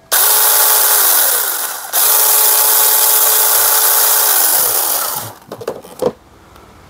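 A 21 V cordless mini chainsaw runs with no load in two trigger pulls, a short one and then one of about three seconds. Its motor whines at a steady pitch over the chain's hiss, and the pitch falls as it spins down after each release. A few light knocks come near the end.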